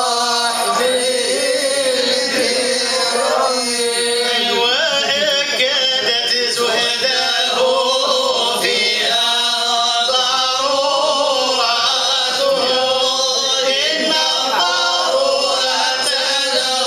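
A group of men chanting religious praise together without instruments, with long held notes that waver and slide in a slow melody.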